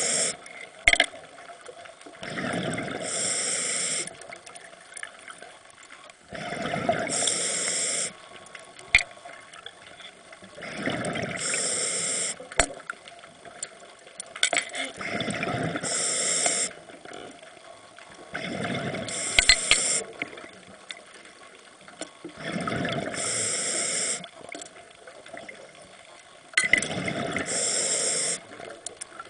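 Scuba diver breathing through a regulator underwater: a hiss and a gurgle of exhaled bubbles come round about every four seconds, roughly seven breaths in a steady rhythm.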